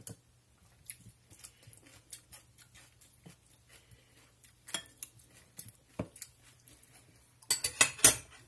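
Metal spoon clinking and scraping against a ceramic bowl while a chopped salad is stirred, in scattered light clicks, with a quick run of louder clinks and knocks near the end.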